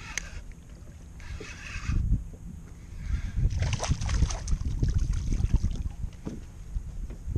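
A hooked porgy (scup) thrashing and splashing at the water's surface beside a kayak, a quick run of splashes starting about three and a half seconds in and lasting a couple of seconds. Under it runs a low rumble on the microphone.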